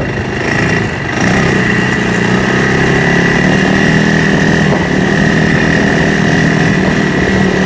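Farm vehicle engine running steadily while driving, growing louder about a second in and then holding an even, continuous note.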